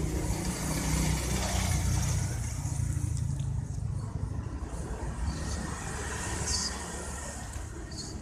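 Tabby mother cat purring steadily, a low pulsing rumble, while her kittens nurse.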